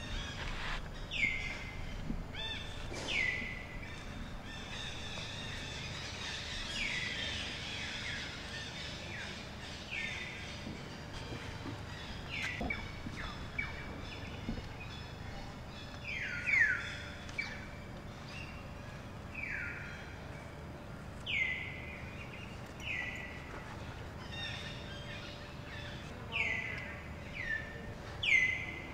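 Bird calling over and over: short high notes that each sweep down in pitch, repeated roughly every one to two seconds, over steady outdoor background noise.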